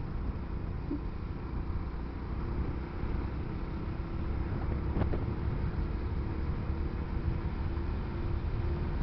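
Motorcycle riding in traffic, heard from a helmet-mounted camera: a steady low engine and road rumble with wind noise on the microphone, and a single short click about five seconds in.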